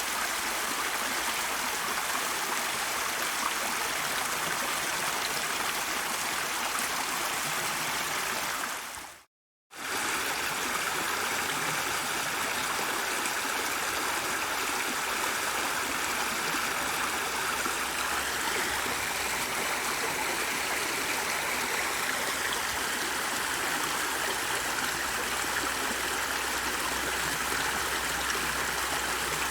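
Stream water flowing and trickling steadily. About nine seconds in the sound fades out into a brief moment of silence and then resumes.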